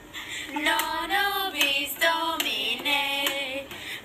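Singing by a high voice, holding long notes, with music.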